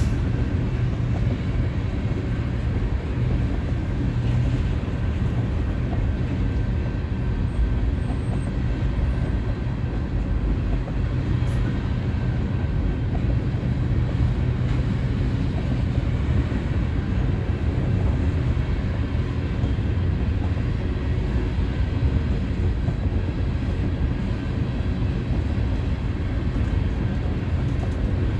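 Railroad train rolling past with a steady low rumble.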